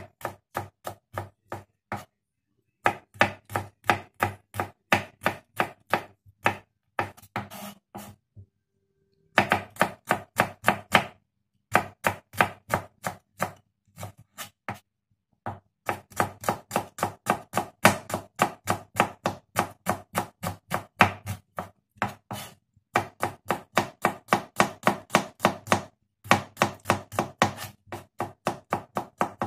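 Kitchen knife chopping shallots and garlic on a wooden cutting board: quick, even knife strikes, about four a second, in runs broken by short pauses.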